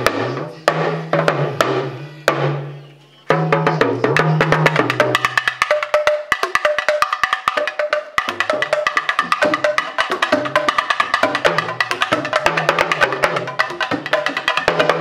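Intro music: a fast run of sharp clicking percussion strikes over a stepping bass line. It fades away about two to three seconds in and starts up again a second later.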